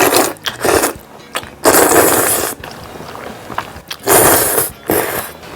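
Close-miked noodle slurping: several loud slurps in separate bursts, with the longest about two seconds in.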